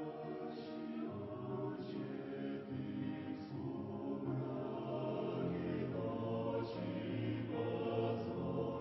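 Choir singing slowly in sustained chords that change every second or two.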